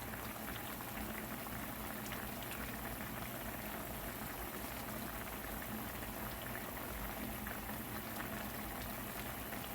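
Jerk chicken sauce boiling in a pot on the stove, a steady bubbling and popping.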